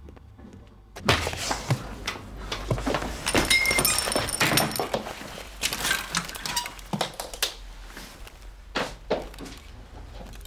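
A thump about a second in, then clattering and rattling of clothes hangers on metal rails as someone pushes in among hanging clothes, with a brief high ringing near the middle.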